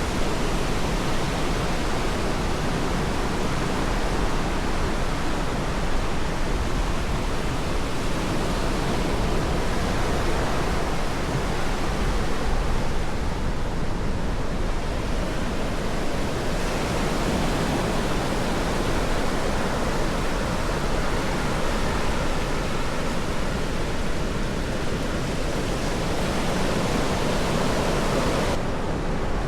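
Ocean surf washing onto a beach: a steady, unbroken rush of noise.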